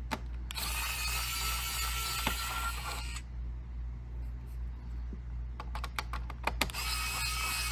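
Mini cordless electric precision screwdriver whirring with a high whine in two runs, about two and a half seconds starting half a second in and again briefly near the end, as it backs small screws out of a laptop. Light clicks of screws and handling between the runs, over a steady low hum.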